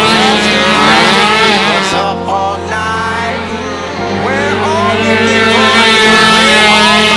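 Small racing ATV engines revving up and down over background music with a steady bass line.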